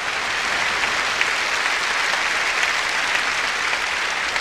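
An audience applauding steadily, many hands clapping in an even, dense wash.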